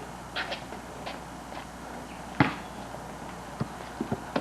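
Basketball bouncing on a hard court: one loud bounce about halfway through, then several lighter bounces coming quicker near the end.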